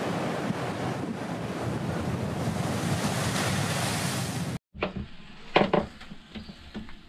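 Waves surging and breaking over a boulder shoreline, with wind on the microphone. This cuts off abruptly a little past halfway, followed by a few sharp knocks in a boat's emptied engine compartment.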